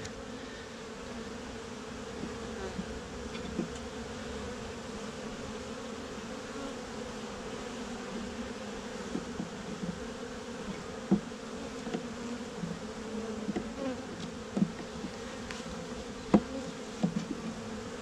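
Honeybee colony buzzing in an open hive: a steady, many-voiced hum. It is broken now and then by short, soft ticks and taps, the sharpest about eleven and sixteen seconds in.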